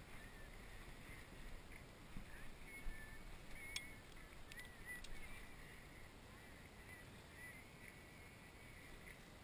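Near silence: faint outdoor background, with a few light clicks around the middle from fishing gear being handled.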